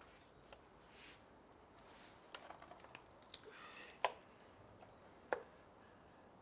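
Quiet sounds of a turtle being butchered: faint wet cutting and handling, scattered small clicks, and two sharp knocks about four and five seconds in.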